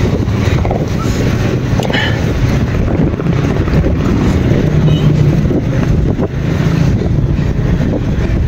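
Road noise while cycling in traffic: wind rumbling on the hand-held phone's microphone, with motor vehicles running close by.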